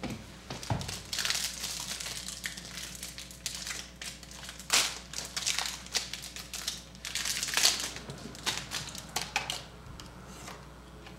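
Wrapper of a trading card pack crinkling and tearing as it is opened by hand, in irregular bursts, loudest about five and seven and a half seconds in, then quieter rustling as the cards are handled.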